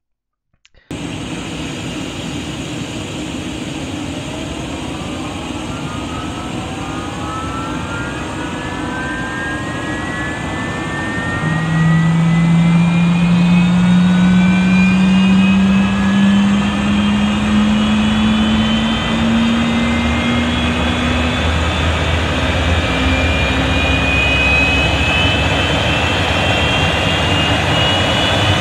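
Airliner's high-bypass turbofan engine starting up: a whine climbs steadily in pitch as the engine spools up. About eleven seconds in, fuel comes on, a louder low hum joins and the whole sound steps up. The whine keeps rising as the engine accelerates toward ground idle.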